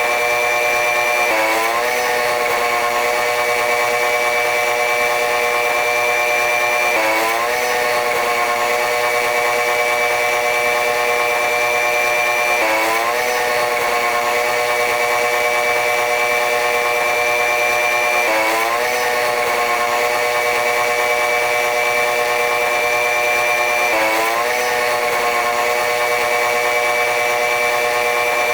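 Train running noise: a steady high whine over a stack of machine tones that dip sharply in pitch and climb back about every five and a half seconds, in an evenly repeating pattern.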